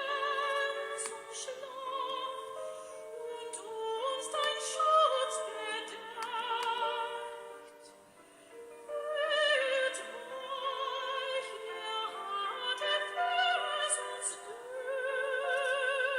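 Music: operatic singing with a wide vibrato. It drops away briefly about eight seconds in, then swells back.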